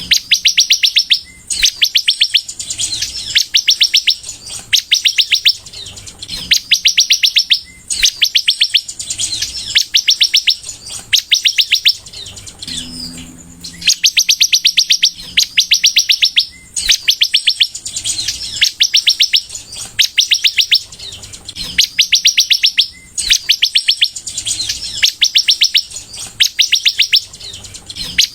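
A caged sunbird, the bird Indonesian keepers call 'kolibri', singing in full. It gives loud bursts of very fast, high chattering notes, each about a second long, repeating with short gaps. There is a short pause with a low hum about 13 seconds in.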